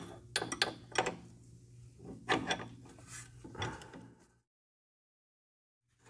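Irregular metallic clicks and clinks of a wrench working loose the hydraulic hose nut on a self-leveling suspension accumulator. The sound cuts to dead silence about four seconds in.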